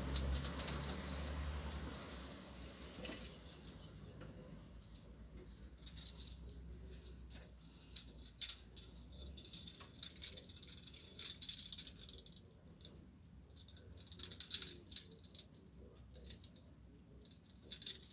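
Metal handcuffs rattling and jingling as they are handled, in irregular bursts with sharp clicks.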